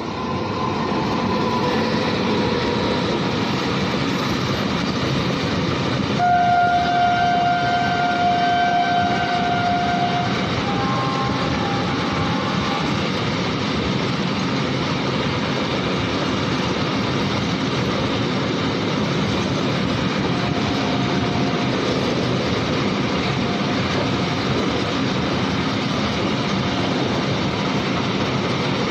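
Train running past with a steady, loud rumble. Its horn sounds a long held note starting about six seconds in and lasting about four seconds, then a shorter, slightly higher note.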